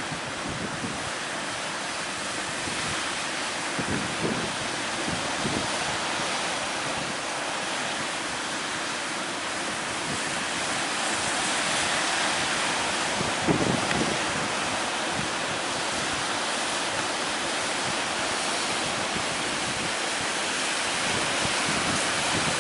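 Big ocean waves breaking in a continuous rushing surf, with wind gusting against the microphone now and then, most strongly about two-thirds of the way through.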